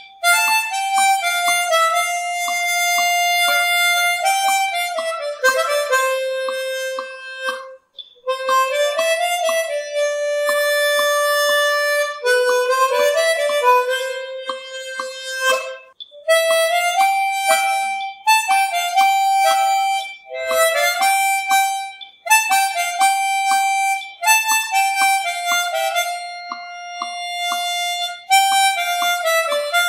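Instrumental background music: a melody of held notes, harmonica-like, over a steady beat.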